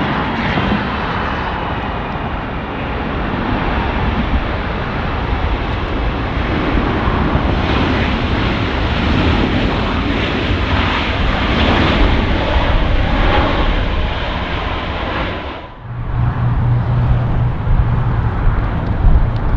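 Jet airliner engines running loudly close by: a broad, steady rush that swells a little in the middle. It cuts off abruptly about sixteen seconds in and gives way to a steady low hum.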